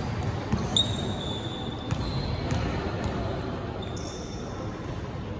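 A basketball bouncing a few times on a gym court floor, irregularly spaced, as the shooter dribbles before a free throw. Short high sneaker squeaks on the court come twice.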